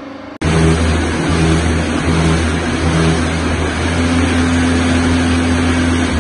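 Automatic concrete block and curbstone machine running, a loud deep machine hum with broad mechanical noise over it that starts suddenly about half a second in. A steady higher tone joins about four seconds in.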